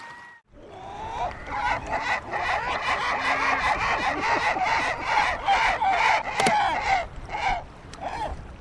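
A flock of gulls calling at once, many overlapping squawks and cries, starting about half a second in.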